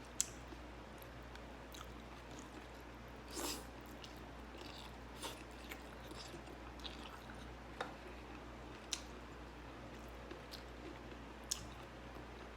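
A person eating rice and vegetables, chewing with scattered short crunches and mouth clicks. The longest crunch comes about three and a half seconds in.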